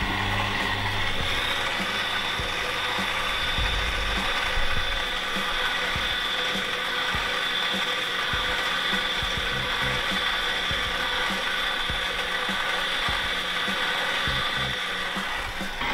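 Tabletop vacuum emulsifying mixer running under vacuum, its homomixer spinning at about 10,700 rpm beside a slow-turning agitator. It makes a steady high whine with irregular light clicking underneath.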